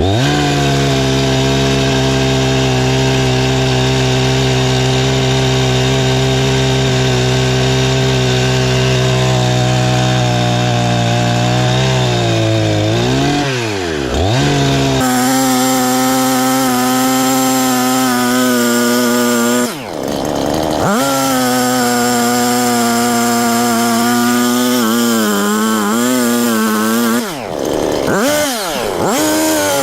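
Perla Barb 84cc two-stroke chainsaw running at high revs while cutting firewood, its engine note held steady through long cuts. The revs drop and climb back briefly a few times: about halfway, two-thirds in and near the end.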